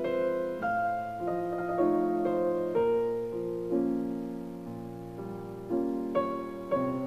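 Slow, gentle piano music: single notes and chords struck one after another and left to ring out.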